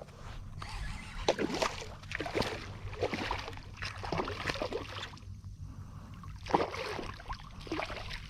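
Irregular water splashing and sloshing beside a fishing kayak as a hooked redfish (red drum) thrashes at the surface while being brought to the net.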